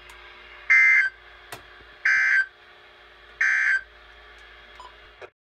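Emergency Alert System end-of-message data bursts: three short, loud, buzzy digital chirps about 1.4 s apart, over faint radio hiss. They signal the end of the alert message. The audio cuts off abruptly near the end.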